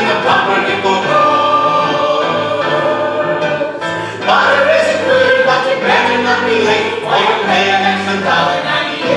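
A group of voices singing a song together, with musical accompaniment.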